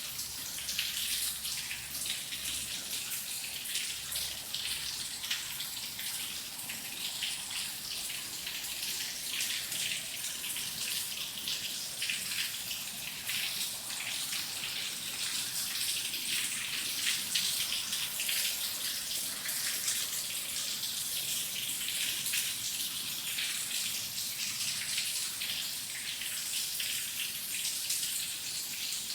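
Steady rain falling, a dense patter of drops with a bright hiss.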